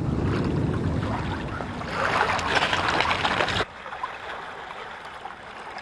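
Water washing at a river shore: a steady rushing noise that grows louder about two seconds in, then drops off suddenly to a softer wash of small waves breaking on pebbles.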